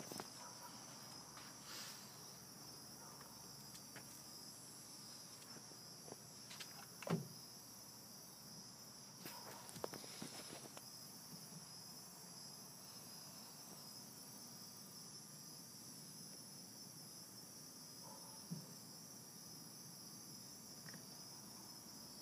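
Faint, steady high-pitched trilling of crickets, with a few soft knocks and rustles about a third of the way in and again near the end.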